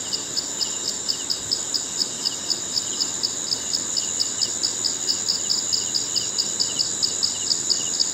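Insects calling: a steady high-pitched trill with a regular, rapid chirping on top, about five chirps a second.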